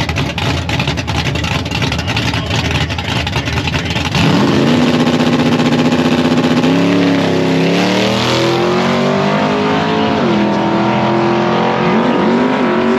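Fox-body Ford Mustang drag car's engine at the starting line. It runs loud and rough, then about four seconds in revs up sharply and holds high revs. It then launches and pulls away, its pitch climbing and dropping back with each gear change.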